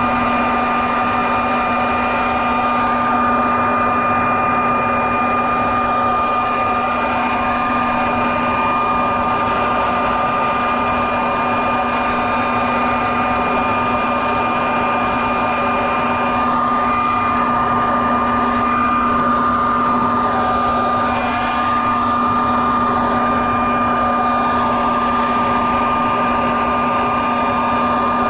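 A large vacuum with a built-in shredder running steadily at full power while sucking up a hornet nest. Its motor gives a constant high whine over a hum, with no change in speed.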